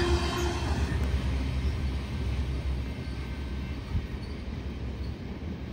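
Rumble of a freight train's covered hopper cars rolling away on the rails, fading steadily as the end of the train recedes; a wheel squeal dies out within the first half second.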